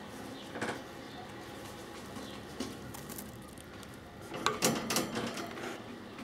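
Budapest short-faced tumbler pigeons cooing and moving about in a cage, with short scuffles. The loudest part is a brief burst of scuffling and fluttering about four and a half seconds in.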